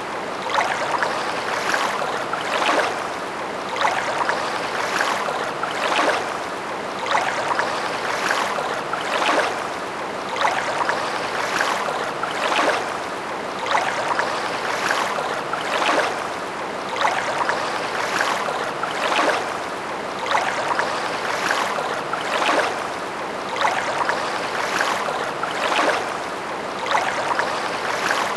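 Steady rushing noise with no tune or voice, swelling and easing about once a second.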